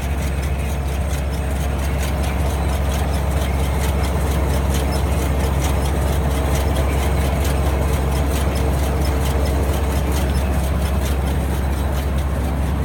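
A tractor engine running steadily at an even speed, with a fast, even light ticking over its hum.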